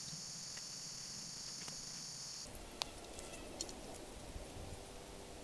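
Steady high-pitched chorus of insects, which cuts off abruptly about halfway through. Faint rustling and a few small clicks follow.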